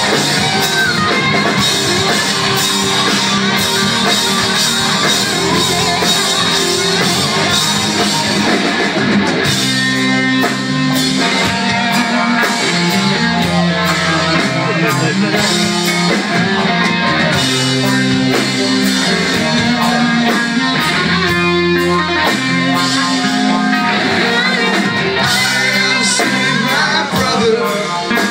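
Hard rock band playing live: distorted electric guitars, bass and drums going at full volume with a steady beat.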